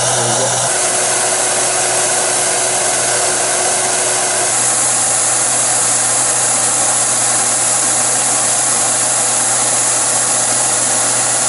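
Steam locomotive letting off steam: a loud, steady hiss that grows brighter about four and a half seconds in.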